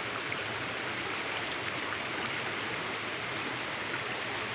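Water of a rocky stream and waterfall rushing steadily, an even unbroken rush.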